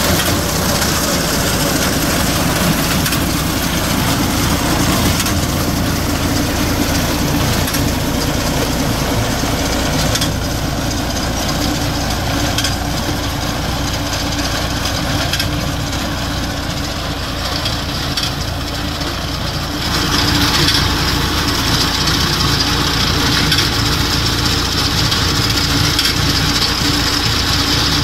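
Tractor diesel engine running steadily while the front-mounted reaper binder cuts and ties wheat. The sound shifts in tone about ten seconds in and again about twenty seconds in.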